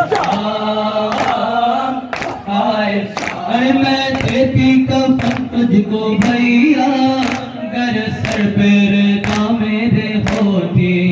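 Urdu noha (Shia lament) sung by a male lead voice over a microphone and sound system, with a group of men chanting along. Hands strike chests in matam about once a second, keeping the beat.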